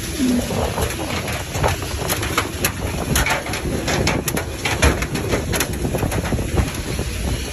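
Footsteps climbing the aluminium diamond-plate steps of an airport shuttle bus, a scatter of sharp knocks and scuffs over a steady low rumble.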